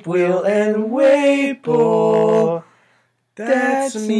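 A man singing without accompaniment in long, held notes that slide between pitches, breaking off briefly about three seconds in before starting again.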